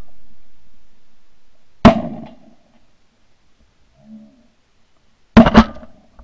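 Two 12-gauge shotgun blasts about three and a half seconds apart, each sharp and dying away over about half a second, fired at mallards flushing over the decoys.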